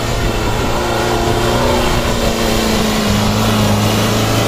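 Engine of a modified Lada Niva off-roader running as it drives through deep snow ruts. The note is steady and drops slightly about three seconds in.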